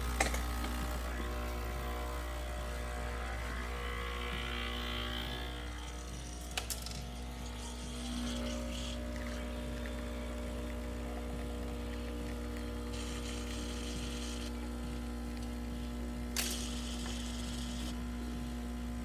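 Breville espresso machine's vibratory pump running steadily as it pulls a shot of espresso, its hum shifting a little in pitch partway through as the pressure builds. The pump runs without trouble after its leaking gasket was replaced. A click sounds right at the start, with a couple of fainter clicks later.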